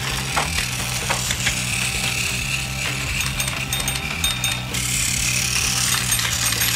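Battery-powered Plarail toy trains running on plastic track: a steady whir of their small motors and gears, with a few clicks near the start, over background music.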